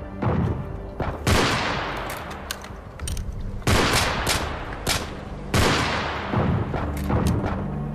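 Gunfire: a rapid series of shots, some single and some in quick clusters, each followed by a long echoing tail, over a steady low hum.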